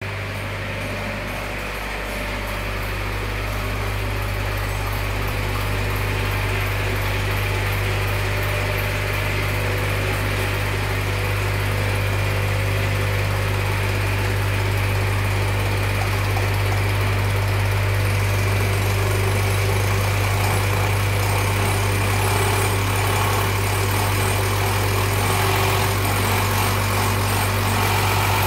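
Diesel injection pump test bench running steadily, its drive turning an inline diesel injection pump (Bosch-type) being set up for calibration: a constant low machine hum that grows gradually louder.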